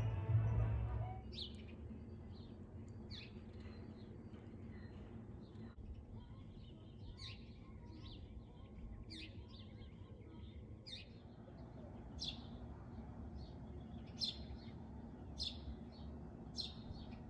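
Bar music and voices cut off about a second in. After that, small birds chirp in short, quick calls over a low steady background hum, and the calls come more often and louder in the second half.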